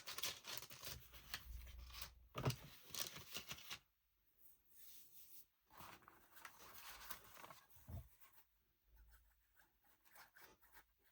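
Paper and card being handled: crackly rustling for the first few seconds, then fainter, sparser rustles, with a soft knock about two and a half seconds in and another about eight seconds in.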